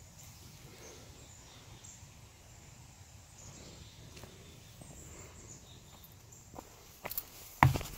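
Quiet woodland ambience with faint, short high chirps, then footsteps on the trail starting near the end as a few sharp knocks, the loudest one just before the end.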